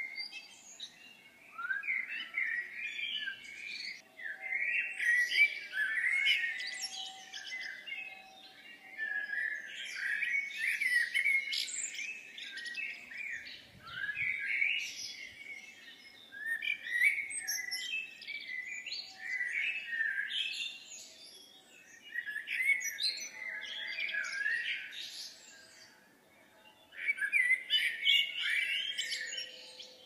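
Songbirds chirping and twittering in repeated bursts of one to three seconds with short gaps between.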